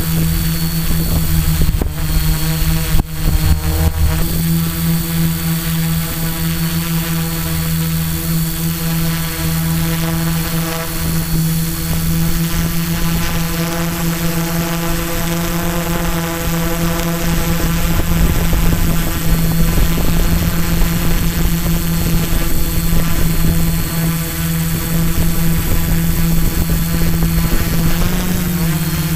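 Electric quadcopter's motors and propellers buzzing steadily in flight, heard close up from the onboard camera, with a low rumble beneath. A couple of sharp knocks come about two and three seconds in, and the pitch wavers briefly near the end.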